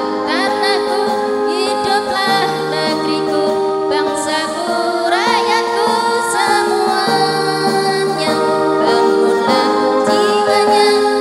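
Women's choir singing a devotional song together over long held instrumental chords.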